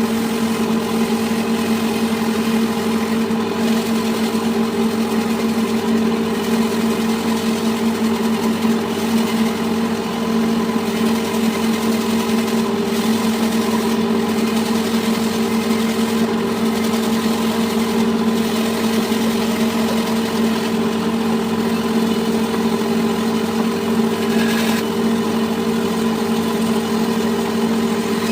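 A woodworking power tool's electric motor running steadily at a constant pitch, with a steady hum and no change in load.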